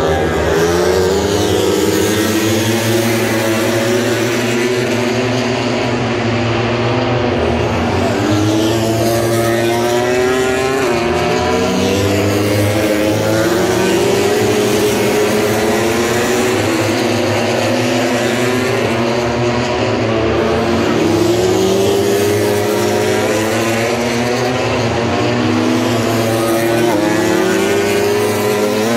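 Several Grand Prix racing motorcycles at full throttle, their overlapping engine notes rising in pitch again and again as they shift up through the gears.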